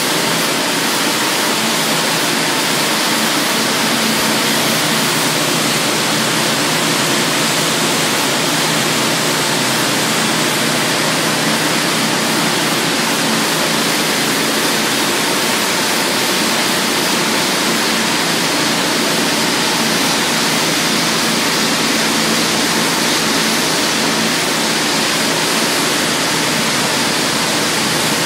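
Pressure washer spraying a concrete floor: a loud, steady hiss of the water jet with a low steady hum underneath.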